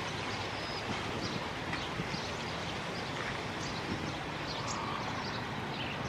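Steady outdoor background hiss with faint, scattered high bird chirps.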